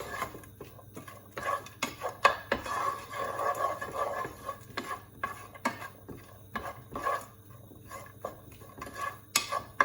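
A utensil knocking and scraping against a frying pan while stirring peas, onions and spices frying in a little oil, with many irregular clicks and taps.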